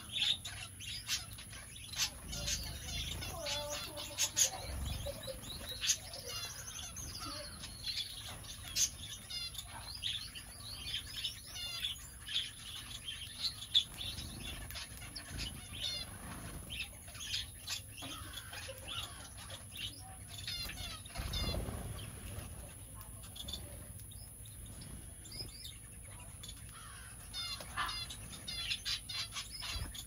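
A mixed aviary flock of small finches (owl, Gouldian and society finches) and rosy Bourke's parakeets chirping with many short, high calls, while wings flutter as birds fly to and from the feeder.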